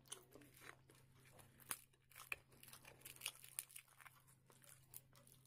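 Fingers tearing a deep-fried puri and scooping chickpea curry with it: faint papery tearing and crackling, with a few sharper crackles.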